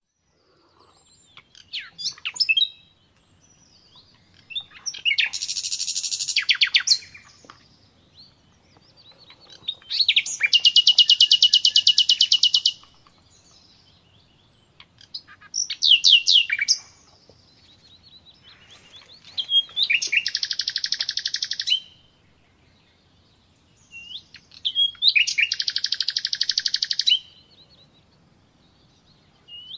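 A songbird singing in separate phrases every few seconds, with short chirps and several longer fast, high trills of about two to three seconds each.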